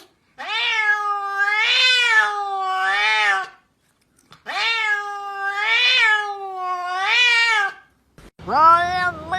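A domestic cat making two long, drawn-out meows, each about three seconds, rising and falling in pitch three times like talking. Near the end another long, steadier pitched call begins.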